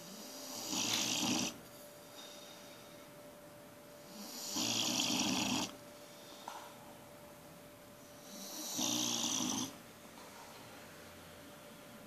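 Pit bull snoring in deep sleep: three long snores about four seconds apart, each swelling and then stopping abruptly.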